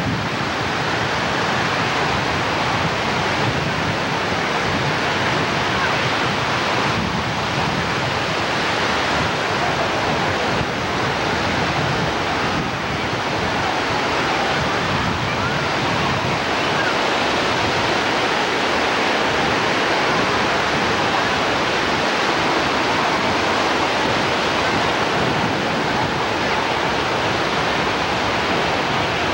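Ocean surf breaking and washing in a steady rush of noise.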